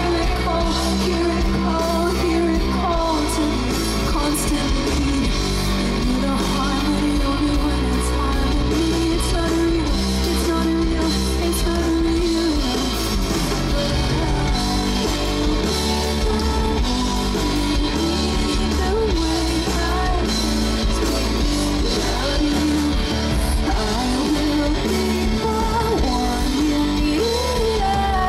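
Live rock band performance: a woman singing lead over drums and guitar with a heavy low end.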